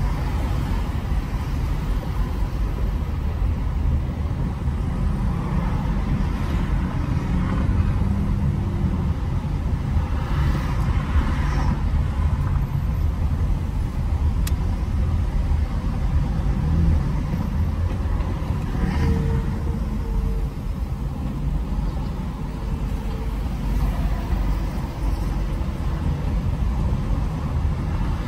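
Car road noise in slow freeway traffic: a steady low rumble of engine and tyres, with a couple of brief swells as nearby vehicles pass.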